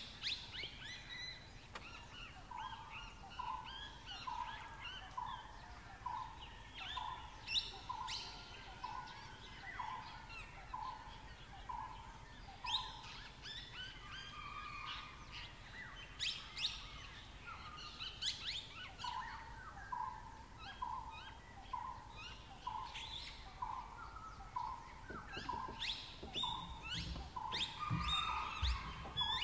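Forest birds calling: a steady chorus of chirps and trills, over which one bird repeats a single low note about one and a half times a second in two long runs. A low rumble comes in near the end.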